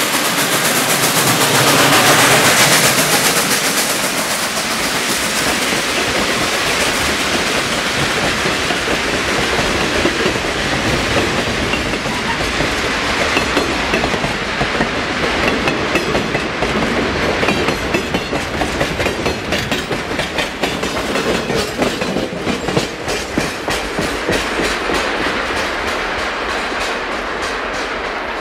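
Western Maryland Scenic Railway 2-8-0 steam locomotive No. 734 passing close by, loudest about two seconds in. A long string of freight hopper cars follows, rolling past with a steady clickety-clack of wheels over the rail joints that eases slightly as the train moves away.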